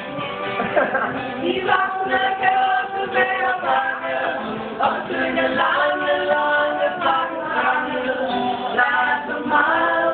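A small group of men's and women's voices singing a song together, with notes held in turn.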